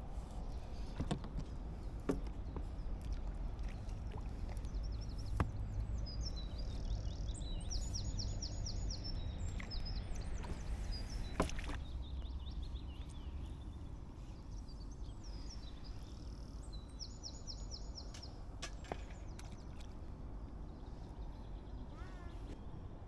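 A songbird singing twice, about ten seconds apart, each time a fast run of high repeated notes, over a steady low rumble that eases off about halfway through. A few sharp light clicks are scattered through.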